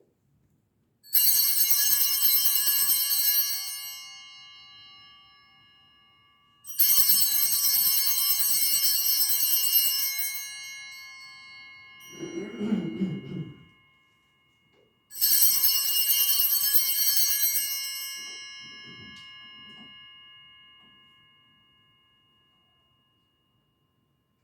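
Small bells rung in three bursts. Each rings for about two and a half seconds, then fades away over several seconds. A brief low sound comes between the second and third ringing.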